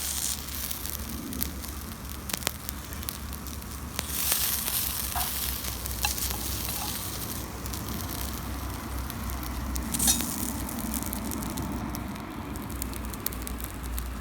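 Food sizzling over a hinoki wood-pellet fire in a Solo Stove, with steady crackling and scattered sharp pops.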